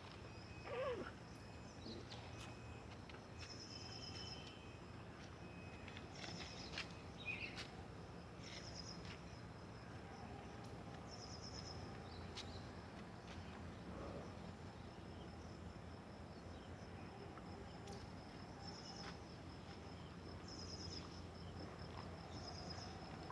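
Insects chirping in a steady high-pitched trill, with a pulsed burst of chirps repeating every two to three seconds.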